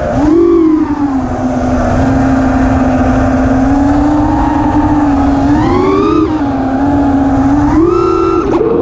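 Five-inch FPV racing quad's four 2400kv brushless motors and propellers whining steadily, the pitch dipping and rising with throttle changes, a rise in the middle and again near the end. Wind rumbles on the quad's onboard camera microphone.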